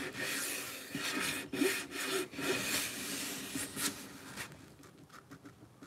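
Gloved hand rubbing linseed oil into a wooden axe handle: a run of rubbing strokes along the wood that fades out about four seconds in.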